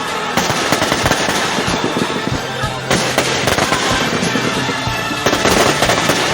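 Fireworks going off in rapid crackling volleys of bangs, with louder surges about every two and a half seconds.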